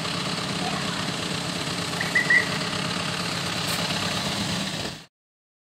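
A vehicle's engine running steadily with a low hum, a few short bird chirps about two seconds in; the sound cuts off suddenly about five seconds in.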